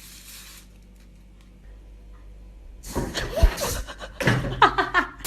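Quiet room tone, then about three seconds in a sudden commotion: a sharp knock or bang, followed by short cries whose pitch bends up and down.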